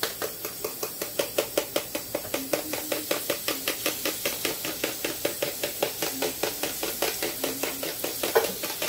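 A fork tapping and scraping quickly against the inside of a bowl, about five strokes a second, pushing beaten egg out into a frying pan.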